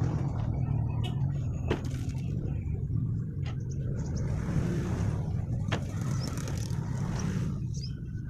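Tubular metal legs of a plastic folding table being folded in, giving a couple of sharp clicks and a stretch of scraping in the middle, over a steady low rumble.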